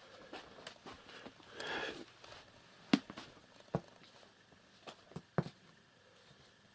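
About five light, sharp taps and knocks spread over the middle seconds, after a short rustle: a cat pawing and batting at things beside cardboard boxes.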